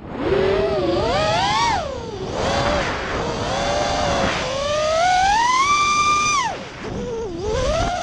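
Mini FPV quadcopter's motors and propellers whining, the pitch rising and falling with the throttle as it swoops. About two-thirds of the way through it holds a long high whine, then drops sharply as the throttle is cut.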